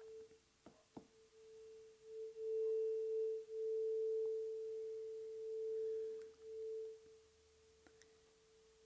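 Planetary tuning fork ringing one steady, pure tone that swells and fades in loudness several times, with a couple of light clicks about a second in.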